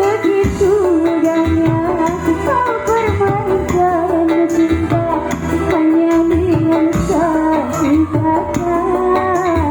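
Music: a song with a wavering, ornamented melody line over a steady low accompaniment, played loud.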